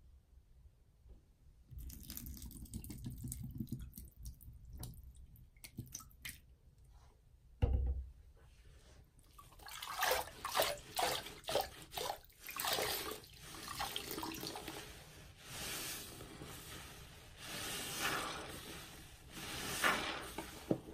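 Liquid cleaner poured from a bottle onto a soaked sponge in a sink, with a few clicks and a thump. Then a large orange sponge is squeezed over and over in soapy water, with wet squelching and splashing about once or twice a second as it works up a thick lather.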